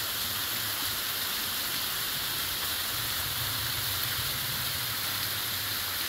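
Waterfall cascading in thin streams down a steep rock face: a steady hiss of falling and splashing water.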